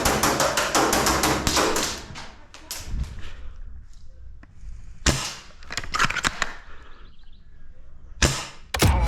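Airsoft guns firing: a rapid string of sharp pops for about the first two seconds, then scattered shots and short bursts.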